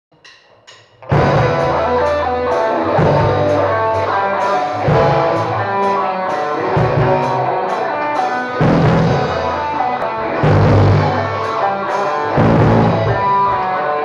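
Electric guitar played over a rock backing track with drum kit and bass. The band comes in loudly about a second in, after two faint ticks.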